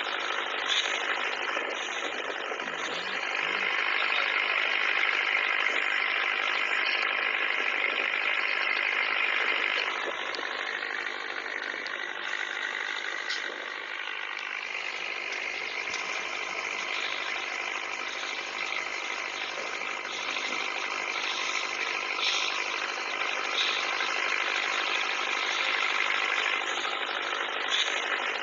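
Toy pop-pop (otok-otok) steam boats running, their candle-heated boilers pulsing water out of the exhaust tubes in a fast, steady rattling putter. The sound is louder for the first third or so, then settles a little quieter.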